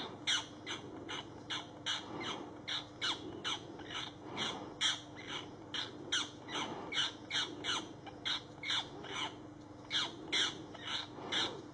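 Rapid, unbroken series of harsh, shrill bird calls, about three a second, each sweeping down in pitch.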